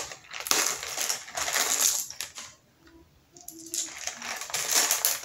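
Clear plastic bag of acrylic crystal gems being handled and shaken: the bag crinkles and the gems clink together, in two spells with a short pause about halfway through.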